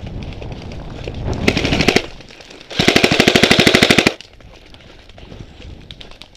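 Airsoft electric gun firing full-auto: a short, quieter rattle about a second and a half in, then a louder rapid burst lasting about a second and a half near the middle.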